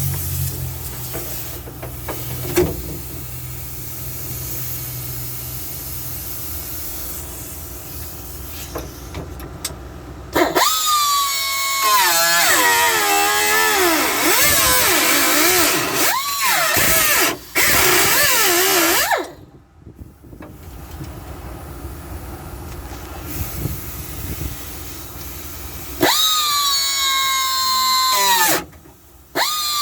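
Handheld power cutting tool cutting through sheet-metal floor pan, running in bursts: a loud whine that drops and wavers in pitch as it bites into the metal, stopping abruptly about nineteen seconds in and starting again twice near the end. A lower steady hum runs before the first burst.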